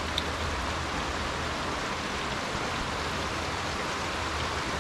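Breaded ling cod and rockfish fillets sizzling in 375°F vegetable oil inside a lidded electric deep fryer: a steady, even hiss with a faint low hum beneath it.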